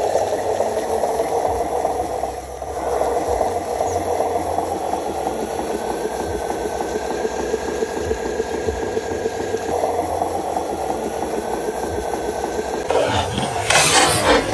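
Small electric motor and gears of a homemade RC dump truck whirring as it drives over dirt, with a faint whine that rises twice. Near the end, water splashing as the truck lies tipped on its side in a water-filled pit.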